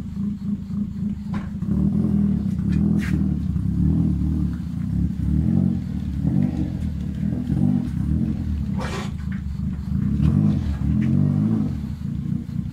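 First-generation Toyota Vios with an aftermarket exhaust running at idle, its deep exhaust note swelling and easing a few times with light throttle. A short sharp noise cuts in about nine seconds in.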